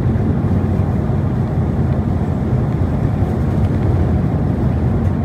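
Steady rumble of a car's engine and tyres on the road, heard from inside the cabin while driving.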